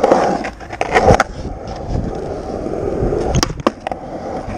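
Skateboard wheels rolling, with a loud knock about a second in and two sharp clicks a little past three seconds.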